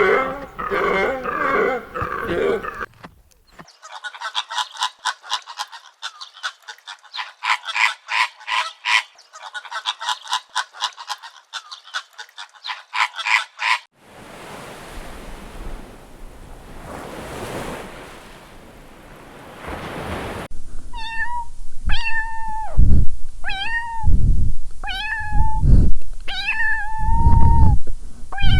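A domestic cat meowing over and over, about seven calls in the last third, each one rising and falling. Before that comes a run of other animal sounds: a quick, even series of short calls, then a stretch of steady hiss.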